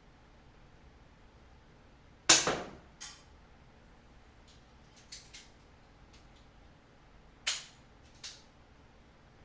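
Two handgun shots about five seconds apart, the first the louder. Each is followed under a second later by a fainter sharp crack, fitting the bullet striking a steel silhouette target downrange. Between the shots there are a couple of small clicks from handling the gun.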